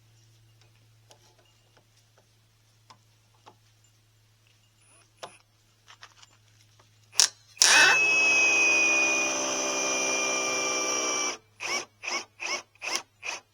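Power drill driving a long timber screw into thick boards: the motor runs steadily for almost four seconds, its pitch sagging slightly under load, then five short trigger bursts that seat the screw.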